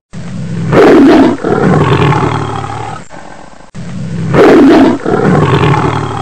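A recorded lion roar sound effect, played twice back to back. Each roar starts with a loud burst, trails off over about three seconds and cuts off abruptly.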